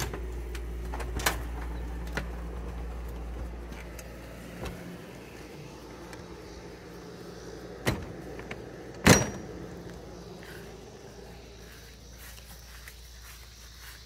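Knocks and clicks from the camper's entry door and handling while stepping outside: a few sharp knocks, the loudest about nine seconds in. Under them a steady low hum stops about five seconds in.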